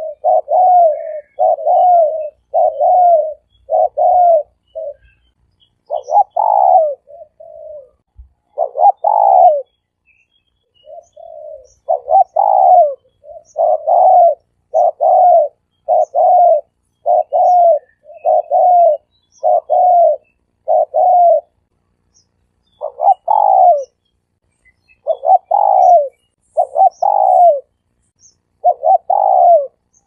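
Spotted dove cooing: a long series of low, arched coo notes, a little under one a second, with a few short pauses.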